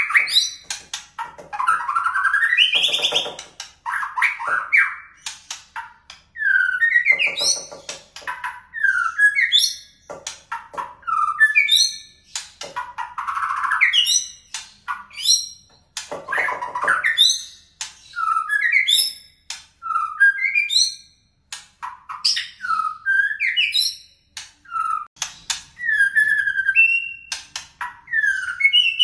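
White-rumped shama (murai batu) singing: a run of short, varied whistled phrases, many of them quick upward-sweeping notes, broken by brief pauses, with a few lower, rattling phrases mixed in.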